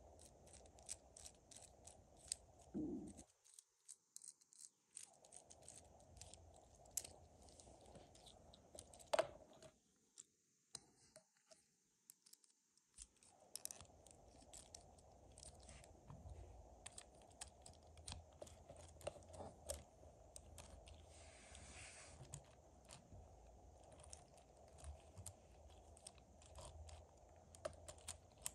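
Faint, irregular clicks and clacks of LEGO Technic plastic parts being handled: the axle's gears, universal joints and steering turned and a rubber-tyred wheel fitted onto a hub. Twice the sound drops out completely for a few seconds.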